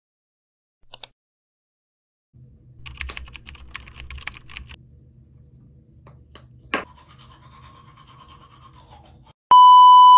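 Crinkling and clicking as a toothpaste tube and an electric toothbrush are handled, then the toothbrush clicks on and runs with a steady whine for about two seconds. Near the end a loud, flat test-tone beep cuts in.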